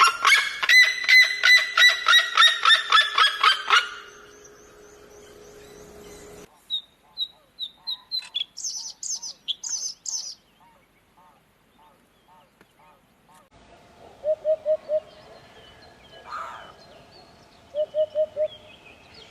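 Birds calling in separate clips. First comes a loud, rapid series of pitched calls, about three a second, for about four seconds. Next, from roughly the middle, a run of short chirps with higher notes. Last, soft low notes come in quick groups of four, twice.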